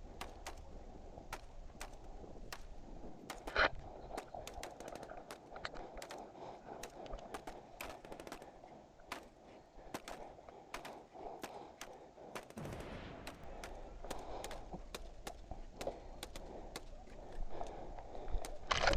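Airsoft replicas firing during a game: scattered sharp snapping shots and short strings of them, with one louder crack about three and a half seconds in.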